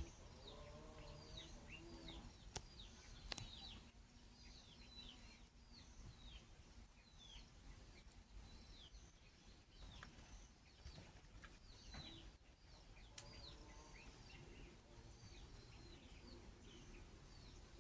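Faint birds chirping: short, quickly falling chirps repeated every second or so, with two soft clicks a few seconds in.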